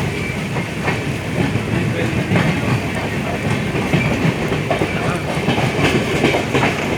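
Superfast express train passing at speed without stopping, its wheels clicking over the rail joints in a fast, irregular clickety-clack, under a steady hiss of heavy rain.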